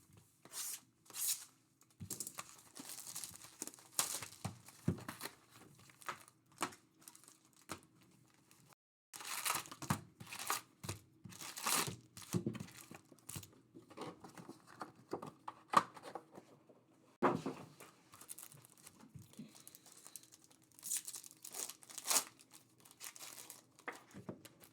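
Plastic wrapping and packaging torn and crinkled in short irregular rasps as a box of Topps Series 1 baseball card packs is opened, with a brief lull partway through.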